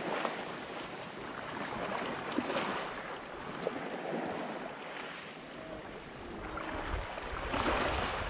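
Sea waves washing against a rocky shore in swells. Wind buffets the microphone from near the end.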